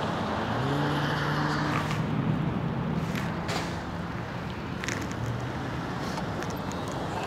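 Street traffic: a motor vehicle's steady low engine hum over road noise, fading out about two thirds of the way through, with a few light clicks.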